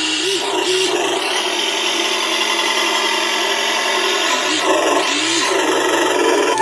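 Music playing loud through a newly installed speaker system, set at mid-volume, with pitch sweeps about a second in and again near five seconds.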